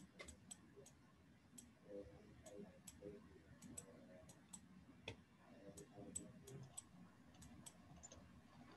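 Near silence with faint, irregular small clicks, a few a second, from a stylus tapping on a tablet while handwriting.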